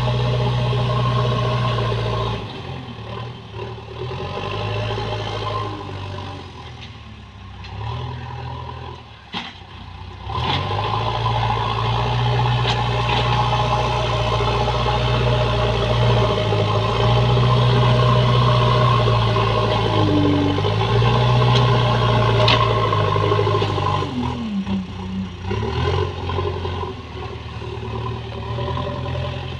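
JCB backhoe loader's diesel engine running under working load, easing off and picking up again as the machine works, with a few sharp knocks.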